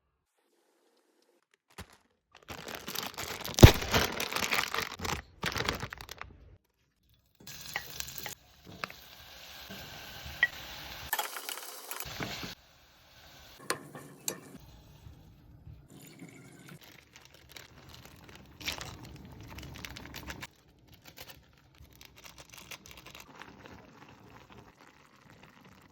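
A run of short, abruptly cut kitchen sounds from cooking instant ramyun: a packet tearing and crinkling, cooking in a pot, stirring and utensils knocking on cookware. The loudest is a sharp knock a few seconds in.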